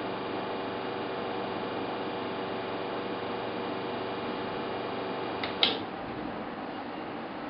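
Espresso machine pump humming steadily during the extraction, then switching off with a sharp click a little over five seconds in as the shot is stopped.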